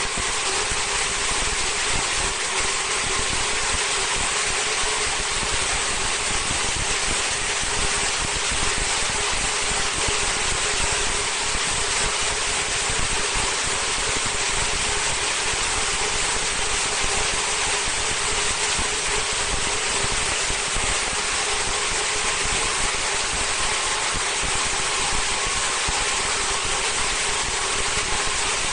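Vertical high-speed film slitting-rewinding machine running steadily: a constant hiss of film winding onto the rolls over a steady motor hum.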